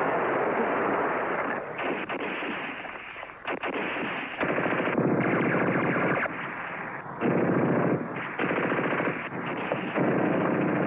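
German machine gun firing in several long bursts of rapid shots, with short breaks between them and a lull about a third of the way in.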